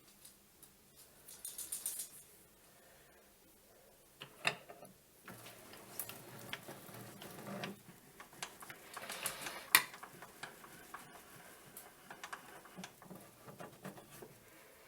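Scattered light clicks and metallic taps from small metal tools and parts being handled at a metal lathe, with no motor running. The sharpest click comes about ten seconds in.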